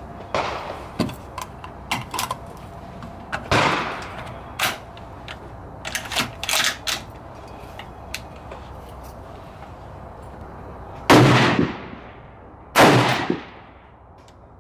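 Two loud rifle shots, most likely from a .300 Win Mag bullpup being sighted in, come about a second and a half apart near the end, each with a long echoing tail. Before them come light clicks of cartridges and a magazine being handled, and two fainter shots.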